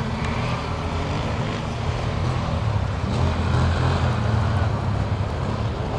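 ATV (quad bike) engine running steadily, heard from a distance, getting a little louder partway through.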